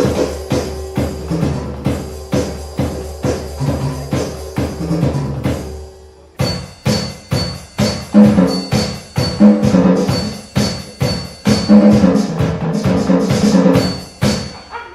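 Electronic drum kit played in a steady beat, switching just after six seconds to a different set of drum sounds with a thin high ringing tone over the hits.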